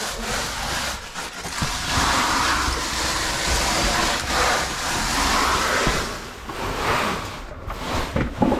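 Scraping and rustling of a caver crawling through a tight rock squeeze, with gear dragging and rubbing on stone in uneven swells.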